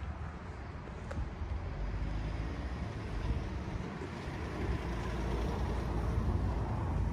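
Steady low vehicle rumble, growing slightly louder toward the end, with a faint click about a second in.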